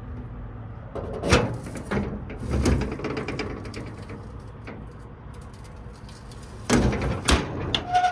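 A series of knocks and clunks, the loudest a pair near the end, with a short beep right at the end.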